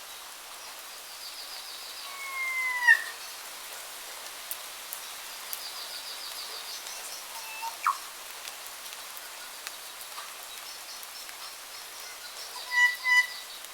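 Forest birds calling over a steady hiss. There are quick high trills, a loud falling whistled call about two to three seconds in, a short rising call about eight seconds in, and two short whistled notes near the end.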